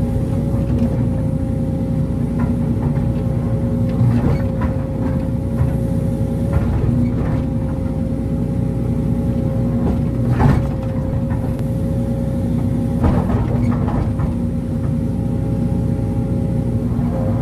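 Sumitomo SH210 hydraulic excavator's diesel engine running steadily under working load, with a steady whine over the rumble, heard from the operator's seat as the bucket scrapes and levels soil. A few short knocks come through, the clearest about halfway through and again a few seconds later.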